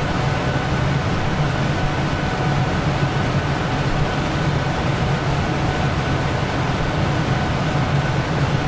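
Steady machine noise: a low drone with a faint thin whine above it, unchanging in level.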